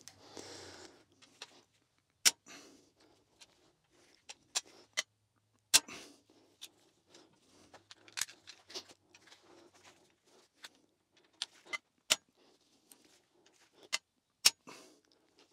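Breaker bar and socket on the tight lower-block bolts of a Mini Cooper S N14 engine: sharp metallic cracks as the bolts break loose, with lighter clinks of the socket and bar between them. About four of the cracks stand out loud above the rest.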